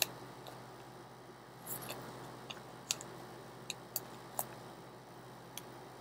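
Pokémon trading cards being handled and sorted into plastic binder sleeve pages: faint, irregular card clicks and snaps, with a short rustle of cards shortly before two seconds in.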